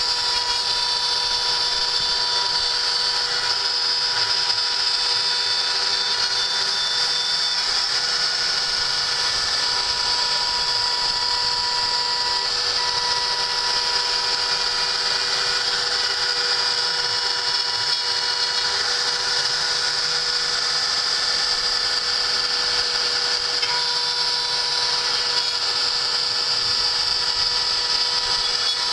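A homemade CNC milling machine running steadily as it machines a stepper-motor mounting plate: a continuous spindle whine carrying several steady tones, some of which fade out and return.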